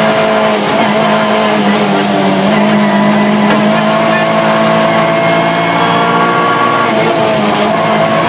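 Rally car's engine heard from inside the cabin, running steadily under load. Its pitch dips slightly about a second in, then climbs gently.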